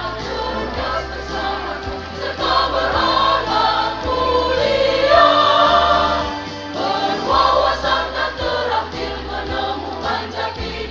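School choir singing a march in several voice parts over accompaniment with a low bass line that changes note about every second.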